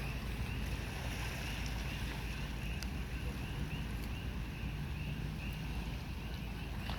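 Steady outdoor night ambience: wind rumbling on the microphone over an even hiss, with a high, fast chirping that repeats a few times a second from night creatures.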